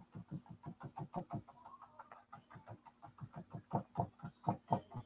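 Paintbrush tapped rapidly against a canvas to stipple on paint: a steady run of soft knocks about five a second, louder near the end.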